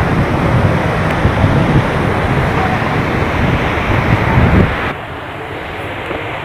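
Heavy rainstorm: a loud rush of rain and wind with gusts buffeting the microphone. The buffeting drops away sharply about five seconds in, leaving a quieter, steadier rush.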